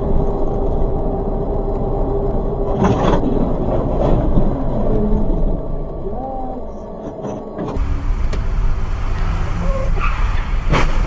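Dashcam recording of a car on the road: steady engine and road noise, with sharp knocks about three and four seconds in and again near the end. The sound changes abruptly about eight seconds in.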